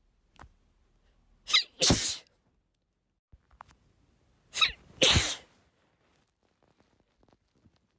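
A woman sneezing twice, about three seconds apart, as part of a sneezing fit. Each sneeze is a short 'ah' followed by a loud 'choo'.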